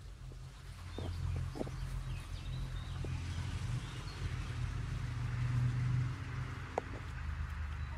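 Hens foraging for popcorn on a lawn, making faint short clucks, with a few sharp ticks. Under them runs a low rumble that swells through the middle and eases near the end.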